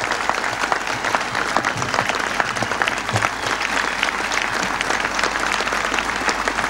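Large outdoor crowd applauding, steady clapping with some cheering.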